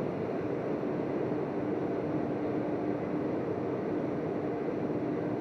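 Steady machinery hum: an even rushing noise with one constant low-middle tone held throughout.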